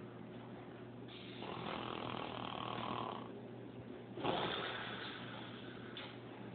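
A person snoring: two long snores, the second, about four seconds in, louder and starting abruptly.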